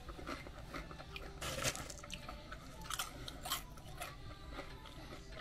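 A person quietly chewing a barbecue chicken sandwich topped with potato chips, the chips crunching faintly several times.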